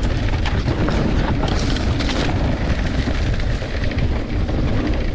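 Mountain bike descending a steep sandy trail on a GoPro: wind buffeting the microphone with a heavy low rumble, tyres on sand and the bike rattling over the ground.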